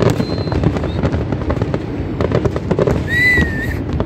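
Aerial fireworks display: a dense, continuous run of shell bursts with bangs and crackling, and a short high whistle about three seconds in.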